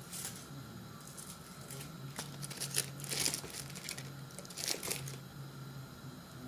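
Crinkling of a foil cheese-portion wrapper being unwrapped and handled by hand, in several short rustling bursts.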